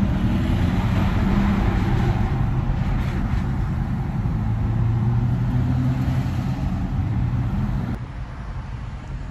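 Dodge Charger 392's 6.4-litre Hemi V8 and road noise droning steadily inside the cabin while cruising. About eight seconds in, the sound drops to a quieter hum with the car stopped at the roadside.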